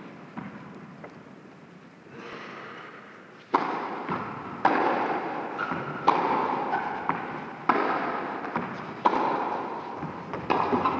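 Tennis rally opening with a serve about three and a half seconds in: sharp racket hits on the ball roughly every second and a half, each ringing out in an echoing indoor hall.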